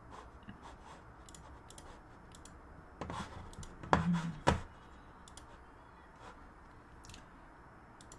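Scattered quiet clicks and taps at a computer, with a cluster of louder knocks and thumps about three to four and a half seconds in.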